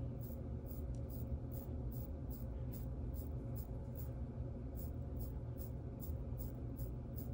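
Quiet room tone: a steady low hum with faint, evenly spaced high-pitched ticks, about three a second.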